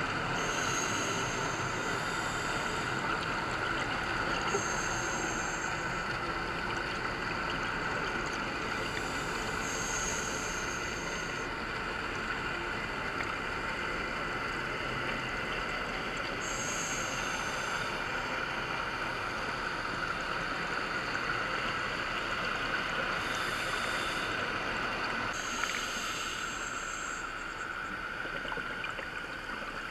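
A scuba diver breathing through a regulator, heard underwater: a steady watery hiss, with a hissing rush of breath and bubbles every four to seven seconds, six times.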